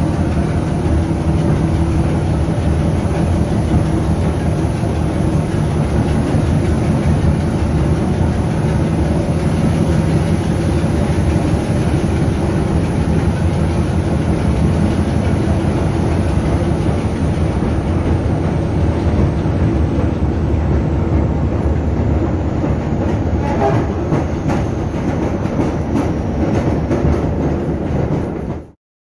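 A British Rail Class 26 diesel locomotive's Sulzer six-cylinder engine working hard under load, with wheel and rail noise, heard inside a tunnel. Near the end rail-joint clicks come through, and then the sound cuts off suddenly.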